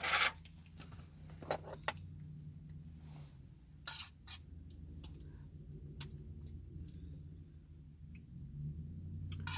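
Scattered light clicks and rustles as a Bubba insulated food cup is unwrapped from kitchen towels and foil and opened, over a steady low hum.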